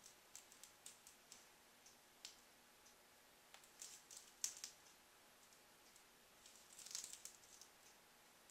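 Near silence with faint, scattered light clicks and a brief soft rustle about seven seconds in: hands working soft éclair dough on a metal baking sheet.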